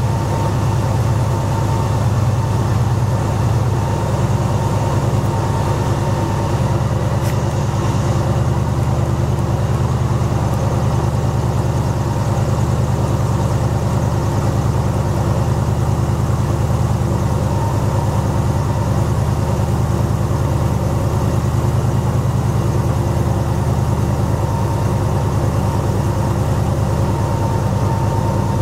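Airboat engine and propeller running at a steady pitch while the boat moves along the channel.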